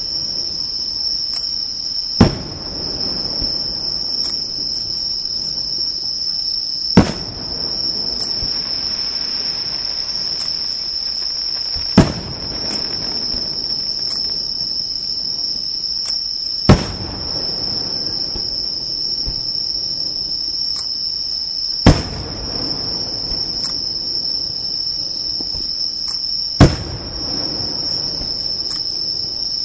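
Fireworks shells bursting, six sharp bangs about five seconds apart, each trailing off in a short rumbling echo, over a steady high trill of insects.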